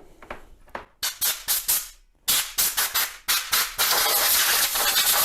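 Compressed-air blow gun from a workshop compressor blasting dust out of an opened soldering station: a run of short puffs of hissing air, then from about four seconds in one steady blast.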